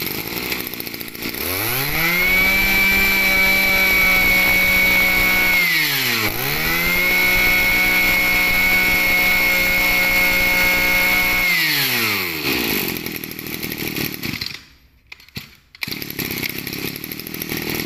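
Small 24cc two-stroke brush cutter engine revved to full throttle and held there, dropping briefly to idle about six seconds in, revved and held again, then let fall back to a rough idle. The engine cuts out briefly near the end.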